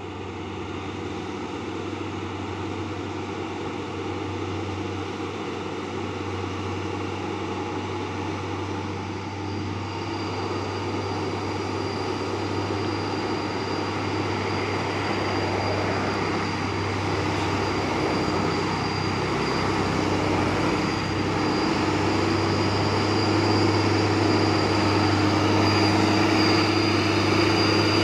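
Hino truck's diesel engine pulling hard up a steep grade, growing steadily louder as the truck climbs closer. A thin high whine joins the engine sound about a third of the way in.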